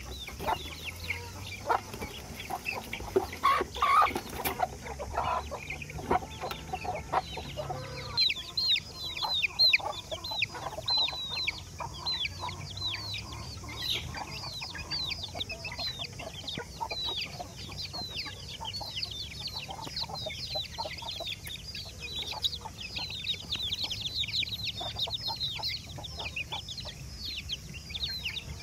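A flock of young Aseel and Erode chickens peeping continuously, many short, high, falling cheeps overlapping. During the first eight seconds there are lower clucks and a few sharp knocks under the peeping.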